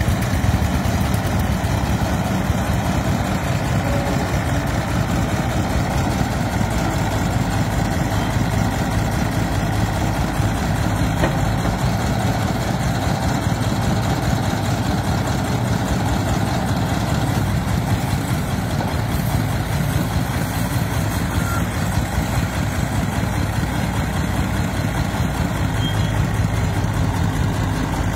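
Steady running of diesel engines: a Komatsu PC50FR mini excavator working its boom and clamshell grab, and an old homemade three-wheeled công nông farm truck's single-cylinder diesel idling while it waits to be loaded.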